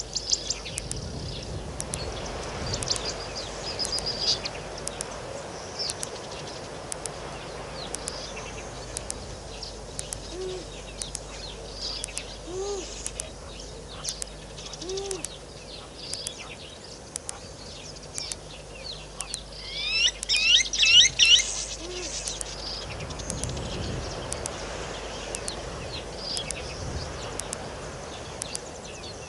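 Wild birds calling at a waterhole: many short high chirps throughout, with a loud burst of quick whistled notes about two-thirds of the way through and a few soft low notes scattered in between.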